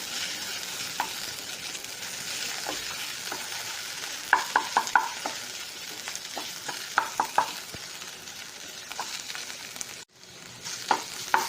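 Capsicum and masala sizzling in a nonstick kadai as it is stirred and sautéed on low heat, drying out, with a steady hiss and clusters of sharp spatula taps against the pan about four and seven seconds in. The sound drops out briefly near the end.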